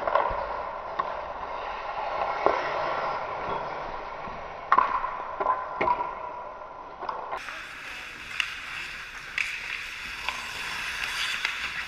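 Ice hockey play: skate blades scraping and carving on the ice, with sharp clacks of sticks and puck, the loudest a little under five seconds in. For the first seven seconds or so the sound is duller, then it turns brighter.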